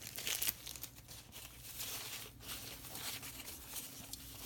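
Faint rustling and crinkling of packing paper being handled, a scatter of small crackles and scratches as a wrapped item is unwrapped.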